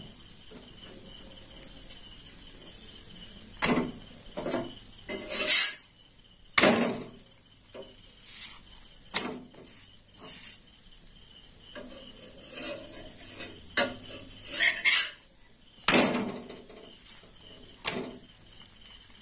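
Metal spatula knocking and scraping on a flat tawa as parathas are turned and pressed, a sharp clack every second or two, over a steady high-pitched tone.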